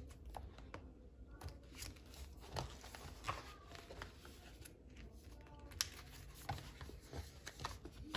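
Loose workbook pages being flipped over on the rings of a binder: soft paper rustling with scattered light taps and clicks.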